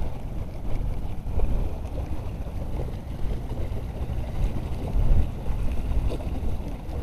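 Wind buffeting the microphone over choppy sea water: an uneven low rumble that swells and fades.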